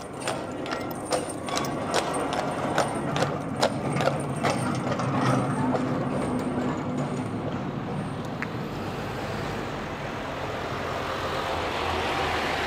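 Horse-drawn tram's horse clip-clopping, its hooves striking the road in sharp, irregular knocks over the first few seconds. Then a vehicle's passing noise swells up toward the end and starts to fade.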